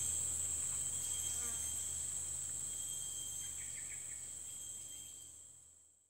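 Steady high-pitched chorus of trilling insects, fading out near the end.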